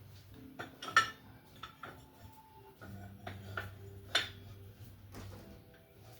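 Metal tools and parts clinking and knocking during hands-on work, a scatter of sharp metallic taps, the loudest about a second in and another about four seconds in.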